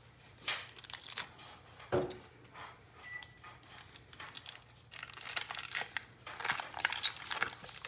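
Foil wrapper of a block of cream cheese crinkling and tearing as it is peeled open by hand. The crackles come in short, irregular bursts and grow busiest in the last few seconds.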